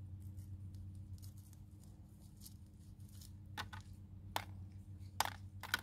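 Hands working a strawberry plant's roots free of a plastic hydroponic net pot: a few sharp clicks and crackles in the second half, the loudest near the end, over a low steady hum.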